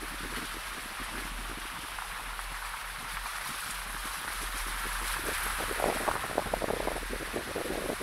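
Wind rushing over the microphone of an action camera mounted outside a Ford Kuga, with the tyres rolling over a wet dirt track. Rapid, irregular crackling builds over the last few seconds.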